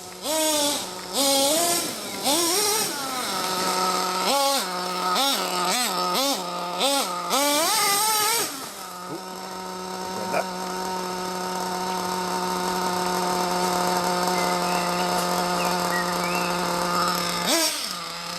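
RB K10 nitro engine of an Ofna Dominator RC truggy revving in repeated short rising and falling bursts, then holding a steady high note for several seconds before revving up again near the end.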